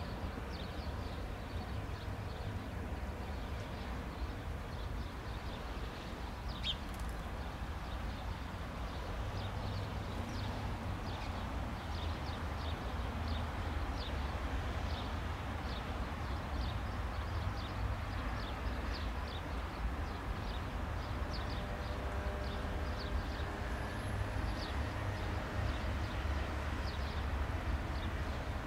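Airbus A320-214's CFM56 jet engines idling as it taxis, a low steady rumble, with frequent short high chirps of small birds over it.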